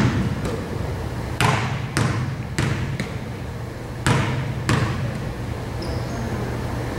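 A basketball bounced on a hard gym floor in short runs of dribbles about half a second apart, each bounce echoing in the hall.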